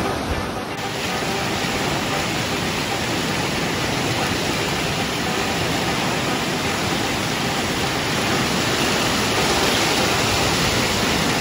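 Whitewater rapids rushing over rocks: a loud, steady wash of fast water.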